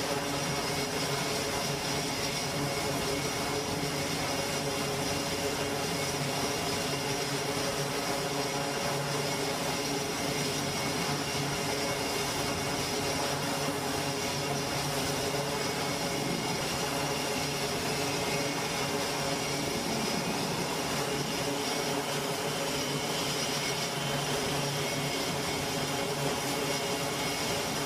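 Grumman E-2C Hawkeye's twin Allison T56 turboprop engines running with propellers turning, a steady drone with a high turbine whine.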